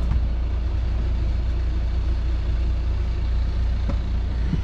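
A sailing yacht's inboard engine running steadily, a low drone.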